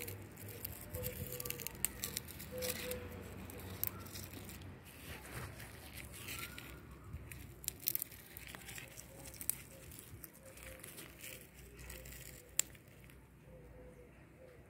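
Scattered clicks, crackles and rustles, as from a handheld phone being moved over garden plants, with faint short repeated notes in the background and one sharp click near the end.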